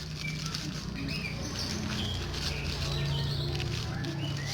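Parcel packaging rustling and crinkling as it is handled and opened, over a steady low hum, with a few faint high chirps.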